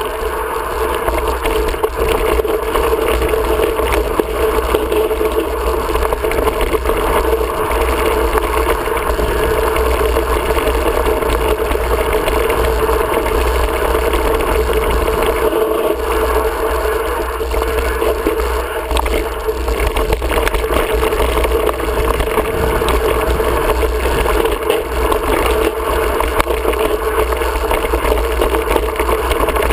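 Wind rushing over a rider-mounted camera's microphone, mixed with the mountain bike rolling and rattling over a dirt singletrack: a loud, steady noise with a low rumble.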